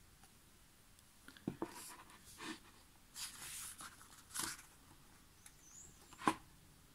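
Pages of a thick paper photobook being turned by hand: a handful of short papery swishes and flaps, the sharpest about six seconds in.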